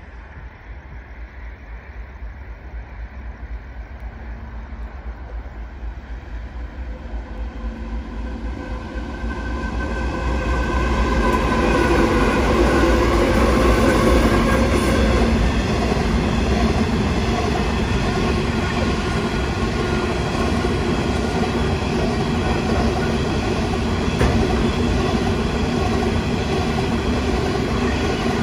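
Coal train led by a Genesee & Wyoming GWU-class diesel locomotive, its engine getting steadily louder as it approaches and loudest about halfway through as it passes. The hopper wagons' wheels then roll past in a steady, even noise.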